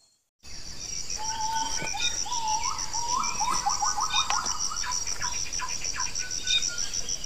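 Forest birds calling in rising, chattering notes over a steady, evenly pulsing insect trill. The sound starts abruptly after half a second of silence.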